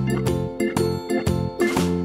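Instrumental background music with pitched notes over a steady beat.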